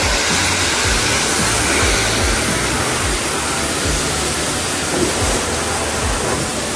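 Steady rushing hiss of car-wash equipment at work on a car, with background music and a regular low beat underneath.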